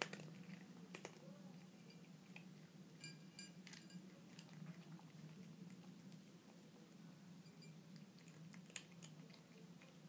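Faint sounds of a cat eating small pieces of cat food off a plate: scattered chewing clicks, with a short run of clicks about three seconds in.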